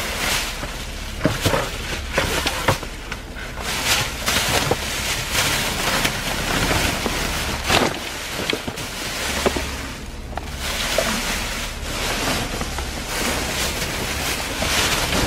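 Rummaging through a dumpster: plastic trash bags rustling and being dragged, with many short knocks and clatters from items being handled. Wind buffets the microphone with a low rumble.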